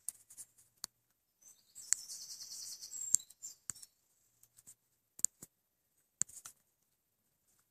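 European badger chewing apples: a scatter of sharp, crisp crunches and smacks, with a dense spell of rapid, high-pitched crunching from about one and a half to three seconds in.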